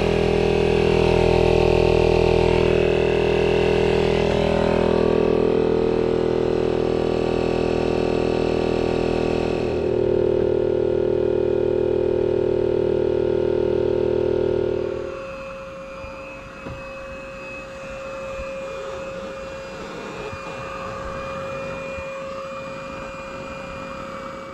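Electric air pump inflating an inflatable paddleboard, running with a loud, steady drone whose pitch shifts about ten seconds in. About fifteen seconds in it gives way to a much quieter steady hum with a thin whine.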